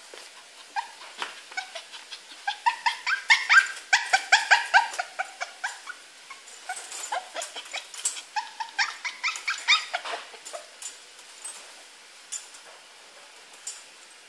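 Poodle whining and yipping in quick, short, high-pitched cries, several a second, coming in two bouts. The cries thin out after about ten seconds, leaving a few sharp clicks near the end.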